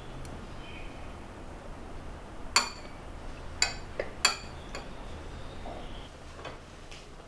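A spoon clinking against a small ceramic bowl four times within about two seconds, each clink ringing briefly, over a low steady hum.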